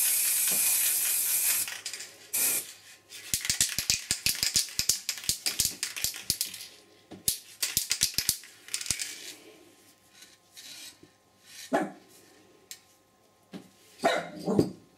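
An aerosol spray-paint can hisses steadily, stops, and gives one short extra puff. A run of rapid rattling clicks follows as the can is shaken. Later a dog shut outside the door barks a few times.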